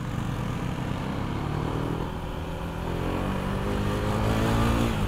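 KTM 390 motorcycle's single-cylinder engine pulling hard under acceleration. Its note climbs steadily in pitch from about two seconds in until near the end.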